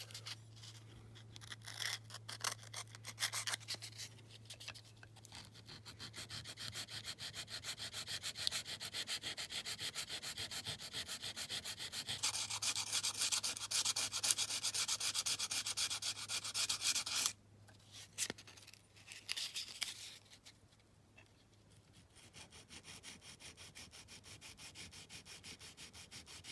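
400-grit sandpaper rubbed by hand in quick back-and-forth strokes over a small die-cast metal model's wing, smoothing a superglue-and-bicarb filler repair. The strokes stop abruptly about two-thirds of the way through, then resume more softly after a short pause.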